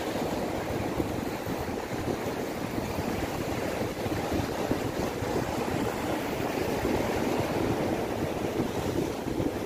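Ocean surf breaking and washing over the boulders of a rock breakwater: a steady rushing noise.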